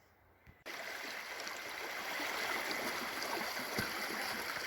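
Steady rushing noise of running water, starting suddenly about half a second in.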